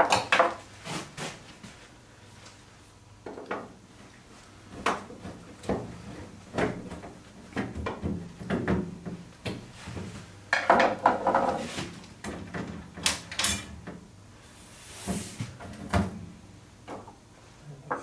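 Hand-work on a window's handrail fittings: scattered clicks, knocks and light metal rattles of a screwdriver and loosened hardware. The busiest stretch comes about ten to twelve seconds in, with a short hiss a few seconds later.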